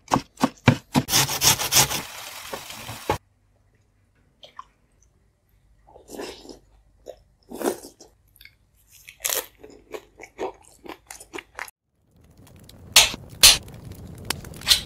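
A knife chops tomatoes on a wooden cutting board in quick strokes that stop suddenly about three seconds in. Scattered crunching and chewing of food being eaten follows. Near the end come a steady hiss and a couple of loud sharp clicks.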